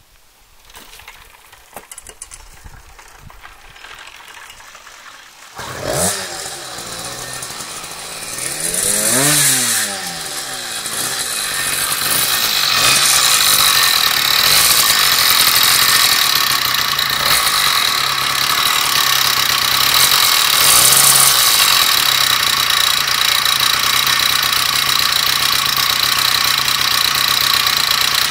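Two-stroke motorized-bicycle engine (CR Machine MPG, 40 mm stroke) being started by rolling the bike: a few light clicks, then the engine catches about six seconds in. It revs up and down, then settles into steady running.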